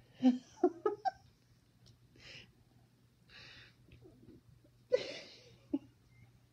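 A woman breathing hard while doing push-ups, with audible breaths in and out. There is a cluster of short, loud vocal sounds in the first second and another about five seconds in.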